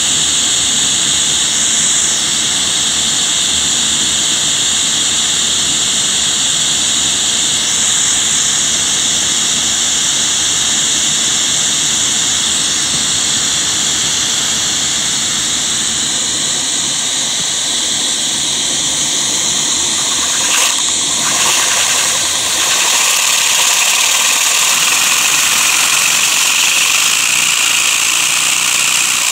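Vacuum cleaner running with a steady, loud hiss of suction, its hose held to a Lego vacuum engine to suck air through it and drive it. A few short knocks come about two-thirds of the way through.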